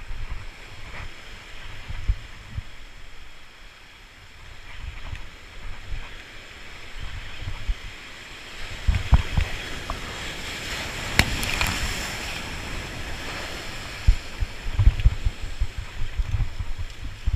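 Sea surf breaking and washing over the rocks of a jetty, swelling louder about nine to twelve seconds in, with low gusts of wind on the microphone.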